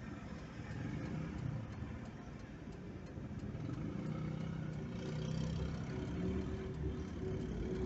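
Car engine and tyre noise heard from inside the cabin while driving, the engine note growing louder about halfway through.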